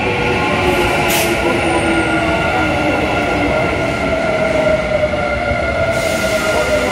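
Kintetsu 5820 series electric train moving along an underground station platform: a rumble of wheels on rail with a steady electric whine from its IGBT inverter and traction motors, and a sharp click about a second in.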